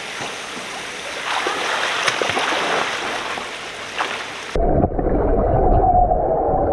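A firework dropped into a swimming pool, heard as a steady hissing, splashy noise with a few faint clicks. About four and a half seconds in the sound turns abruptly muffled and low, with a steady droning hiss, as heard underwater.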